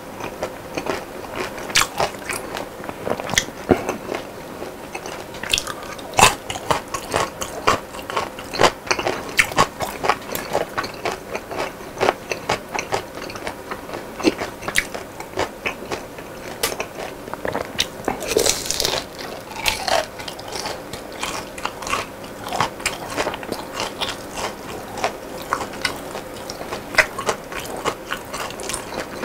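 Close-miked chewing of crispy fried chicken and fried snacks: a steady run of sharp crunches and crackles, several a second, with one brighter crackle about two-thirds of the way through.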